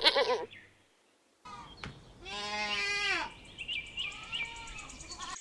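Goats bleating. A short wavering bleat comes at the start, then after a brief gap one long bleat about two seconds in, followed by a couple of fainter, shorter bleats.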